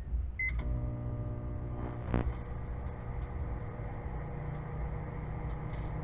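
A microwave oven's short keypad beep, then the oven starting up and running with a steady hum while a DVD heats inside. There is a single sharp click about two seconds in.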